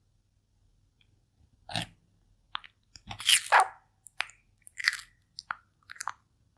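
A pet turtle biting and crunching its food: a quiet first moment, then a run of sharp, irregular crunches, loudest about three seconds in.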